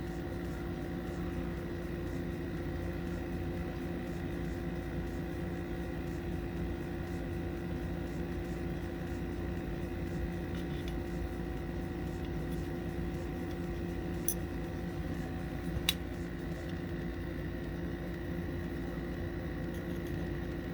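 A steady machine hum with several fixed tones that holds an even level throughout, and two small sharp clicks a second and a half apart about two-thirds of the way through.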